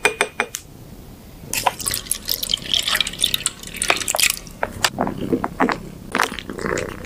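Milky liquid cat treat squeezed from a pouch, dripping and splashing wetly into a ceramic bowl over treat patties, followed by scattered light clicks and taps as treat pieces are set into the dish.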